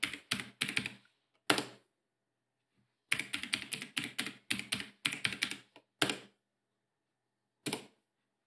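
Computer keyboard typing: a quick run of keystrokes, a pause of about two seconds, then a longer, faster run of keys around the middle and two last single key presses near the end.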